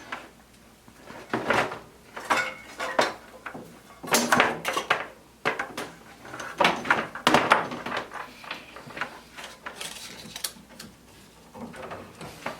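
Hard objects being handled and set down: a string of irregular knocks, clicks and clatters with short pauses between them.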